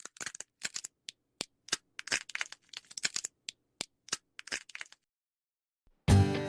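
Squirrels picking through a parcel of acorns and chestnuts: a run of short, irregular cracks and crinkles that stops after about five seconds. Acoustic guitar music starts near the end.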